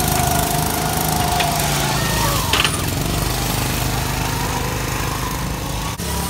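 Small petrol engines of rental go-karts running on a track, one kart passing close by near the start.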